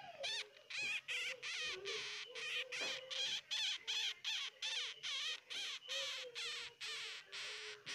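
A baby hamster squeaking over and over while held in a hand: a quick series of short, high, wavering squeaks, about three a second, the crying of a young pup.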